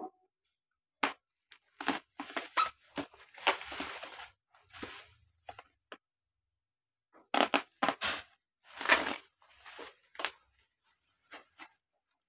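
Bubble wrap and plastic packaging crackling and rustling in irregular bursts with sharp snips as scissors cut it away from a wire cage. There is a short pause of about a second around the middle.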